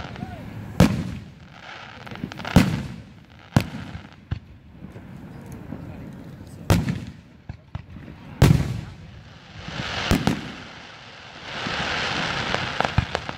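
Aerial firework shells bursting overhead, about seven deep booms spaced one to two seconds apart, each with a rumbling tail. A spell of steady hiss comes near the end.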